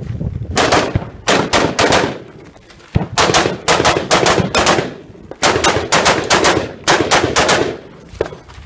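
Rapid semi-automatic rifle fire, likely an AR-15, in quick strings of several shots with short pauses between strings as the shooter moves between positions.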